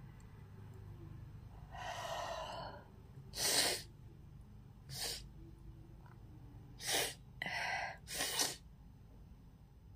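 A person yawning aloud: one drawn-out voiced yawn about two seconds in, then several short, sharp gasping breaths.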